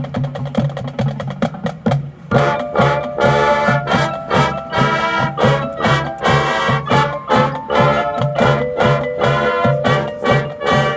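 Marching band playing: drums and low percussion keep a steady beat, and about two seconds in the full brass section comes in over them.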